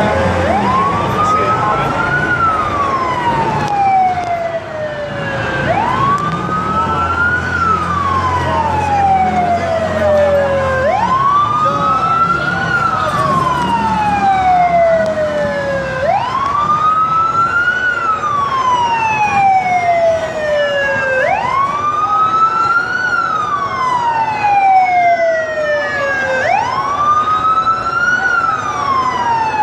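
Police vehicle siren sounding a slow wail: each cycle jumps up quickly, climbs a little more, then glides down over about three seconds, repeating about every five seconds.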